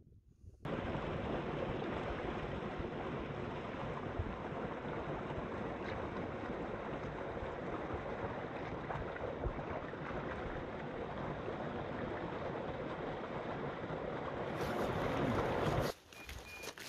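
A small mountain stream rushing and splashing over a little waterfall, a steady loud water noise close to the microphone. It starts abruptly just under a second in and cuts off sharply near the end.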